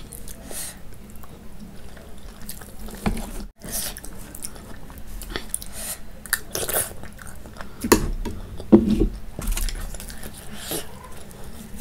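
Close-miked chewing and wet mouth sounds of a person eating soft Indian food: kadhi pakora and naan. Irregular smacks and clicks run throughout, and the loudest smacks come near the end.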